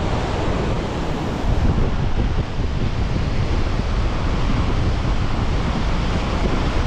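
Water rushing and churning through a dam's open spillway gates, a loud steady roar, with wind buffeting the microphone.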